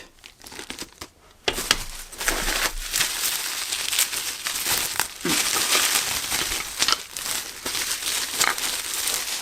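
Plastic packaging crinkling as it is handled, starting about a second and a half in and going on with many small crackles.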